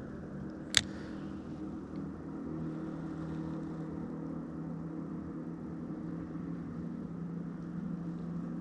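Electric bow-mount trolling motor running steadily, a low hum with a few steady tones. One sharp click about a second in.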